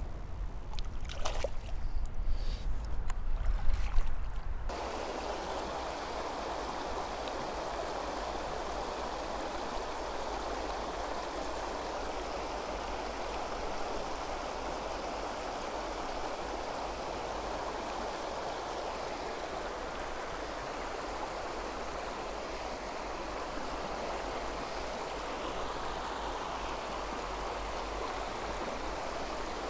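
River water rushing steadily over a low stone weir and shallow riffles. The first four seconds or so hold a low rumble and a few knocks from hands working in the water, releasing a small brown trout, before the even rush of water takes over.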